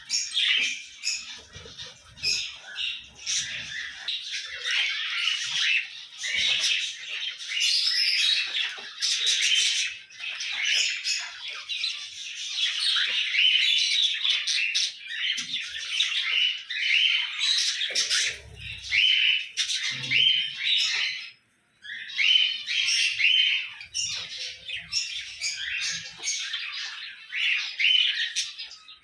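Cockatiels calling, many overlapping chirps and squawks in a constant chatter, broken by a brief silence about three-quarters of the way through.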